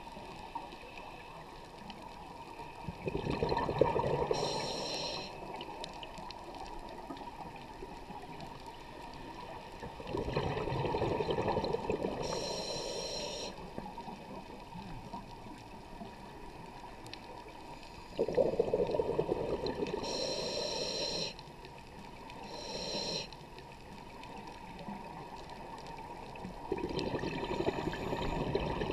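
Underwater scuba breathing through a regulator: a burst of exhaled bubbles about every seven to eight seconds, each ending with a short hiss, over a steady underwater hiss.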